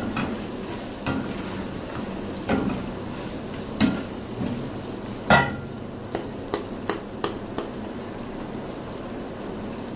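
Wooden spatula stirring and scraping a ridge gourd curry in a stainless steel pot, knocking against the metal several times, the loudest a little past the middle, then a few quick light taps. Under it the curry sizzles steadily in its separated oil.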